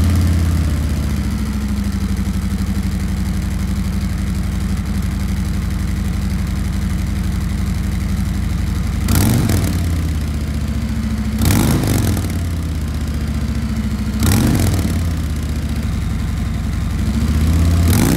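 Harley-Davidson Road Glide Special's Milwaukee-Eight V-twin running through its stock mufflers: a steady idle, then in the second half four short blips of the throttle, the engine note rising and dropping back to idle each time, the last near the end.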